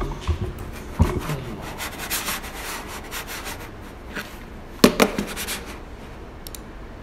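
Rubbing and scraping handling noise, with a sharp knock about a second in and a louder double knock about five seconds in.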